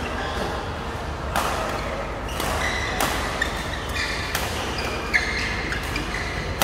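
Badminton rackets striking a shuttlecock in a doubles rally: several sharp hits about a second or so apart, echoing in a large hall, with short squeaks from players' shoes on the court floor.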